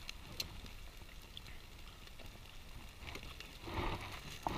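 Faint crackling rustle of aluminium foil as hands pick fish from a foil packet on a campfire, louder near the end, with a low wind rumble on the microphone.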